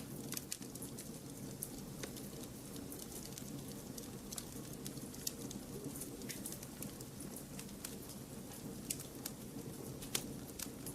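Campfire crackling: irregular sharp snaps and pops, several a second, over a steady low background.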